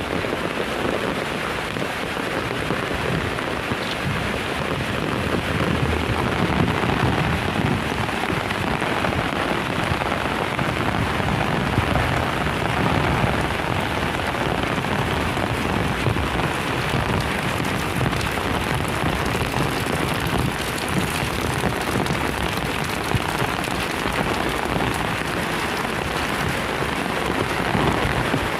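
Heavy rain pouring steadily onto surfaces, a dense even hiss.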